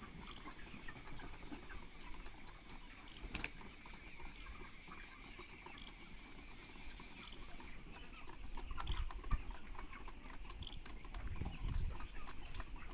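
A flock of broiler chickens: scattered short, high chirps over a constant crackle and patter of birds moving in litter, with a few low rumbles near the end.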